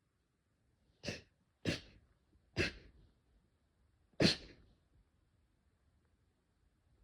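A run of sneezes: three short, sharp sneezes in quick succession, then after a pause a fourth, louder one, with another starting just at the end.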